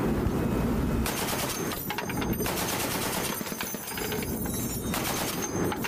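M2 .50-calibre heavy machine gun firing in rapid bursts, with short pauses between the bursts.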